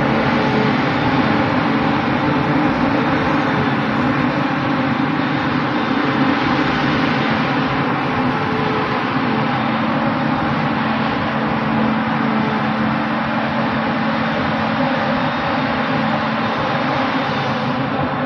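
Claas Jaguar self-propelled forage harvester working, its engine and chopper running under load as it picks up cut grass and blows it into a trailer. The sound is a loud, steady drone with a constant engine hum that eases slightly toward the end.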